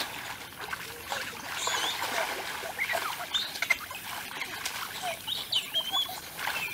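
Water splashing and churning as two boys wrestle in a shallow stream, with many short high squeaks over it.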